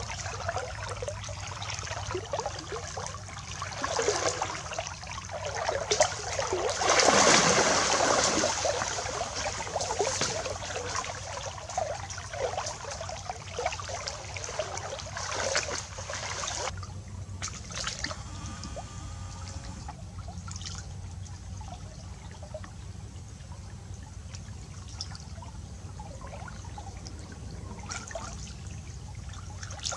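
Creek water splashing and sloshing around a person wading through it, with a louder splash about seven seconds in; the water noise becomes quieter from about seventeen seconds on.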